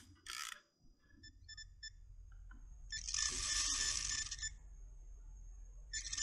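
Electronic carp bite alarm sounding as a fish takes the bait and pulls line: a shrill, buzzy burst of about a second and a half from about three seconds in, then again continuously near the end. A few faint single beeps come before the first burst.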